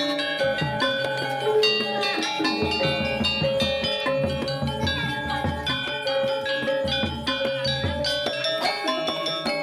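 Balinese gamelan playing: bronze metallophones struck with mallets in dense, ringing interlocking patterns, with repeated low strokes underneath.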